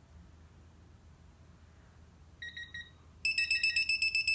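Quinn 1/2-inch drive digital torque wrench beeping as it is pulled to its 65 ft-lb setting: a short, quieter beep about two and a half seconds in, then loud, rapid, high-pitched beeping for under two seconds. This is the alert that the set torque has been met or exceeded.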